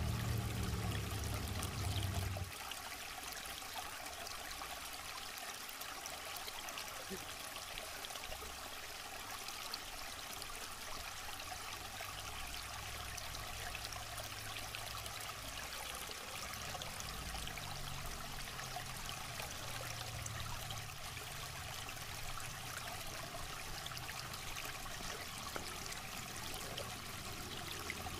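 River water flowing steadily over rocks, an even rushing hiss. A low rumble sits under it for the first two seconds or so and then stops abruptly.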